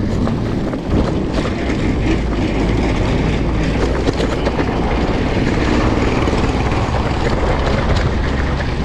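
Steady wind rumble and road noise on an action camera's microphone while riding a bicycle, with small rattles throughout.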